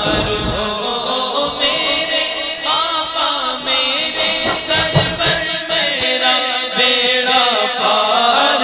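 Background vocal music: a chanted song sung by a voice with held, wavering notes.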